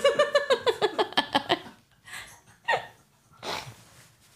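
Two people laughing hard, a quick run of ha-ha pulses that trails off after about a second and a half into breathy wheezes and gasps.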